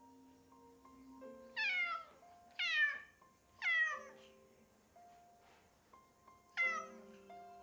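Pet cat meowing loudly four times, each call falling in pitch: three about a second apart, then a fourth some three seconds later. The cat is calling for its owners, who have gone downstairs. Soft background music plays underneath.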